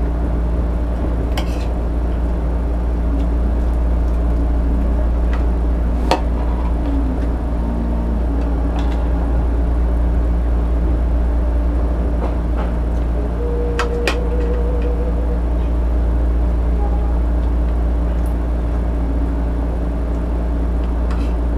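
A steady low hum runs throughout, with a few sharp clinks of plates and utensils about 1.5, 6, 9 and 14 seconds in as food is picked apart by hand.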